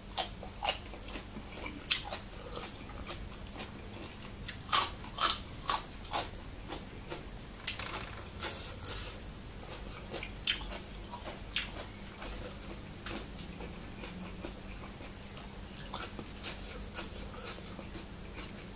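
A man chewing a mouthful close to the microphone, with crisp crunches and wet mouth clicks scattered through, several in quick succession about five seconds in. Underneath is a faint steady hum.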